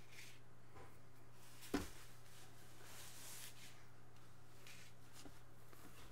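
Faint rustling and brushing of hands moving over crumpled paper, with one sharp knock nearly two seconds in, over a steady low hum.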